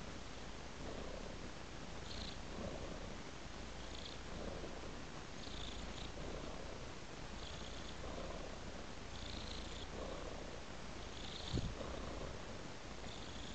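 Tabby cat purring continuously, the purr swelling and easing about every two seconds, with soft licking sounds as it grooms its paw and face. A single short thump about eleven and a half seconds in.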